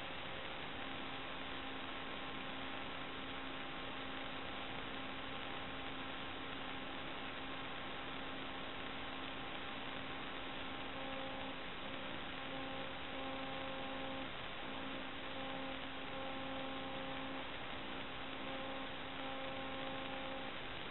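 Steady electronic hiss with a faint hum of several steady tones, some breaking off and coming back in the second half; no other sound.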